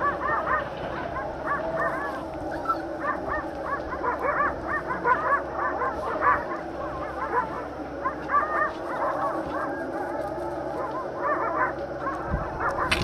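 Alaska husky puppies yipping and squealing in quick, short, rising-and-falling calls, over and over, as they play-fight.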